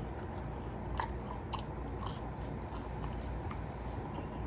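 A person chewing and biting food close to the microphone, with a few small, sharp crunchy clicks over a steady low background hum.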